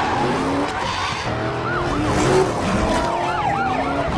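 Car-chase sound effects: police sirens yelping with a quick repeated rise and fall, over car engines and screeching tyres. A long falling screech comes near the end.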